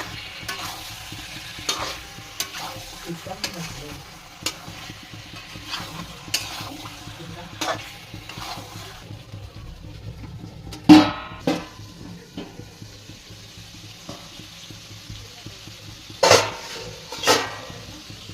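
Chicken curry frying in a pan, stirred and scraped with a metal spatula: a low sizzle under frequent short scraping strokes. There is a loud metal clank on the pan about eleven seconds in and two more near the end.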